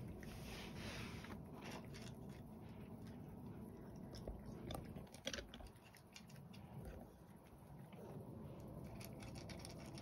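A cat crunching dry kibble as it eats, heard as faint, irregular crunches and clicks.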